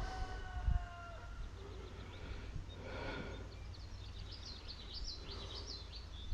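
Songbirds chirping, with a quick run of high chirps in the second half, over a low wind rumble on the microphone. A ringing tone fades out within the first second or so.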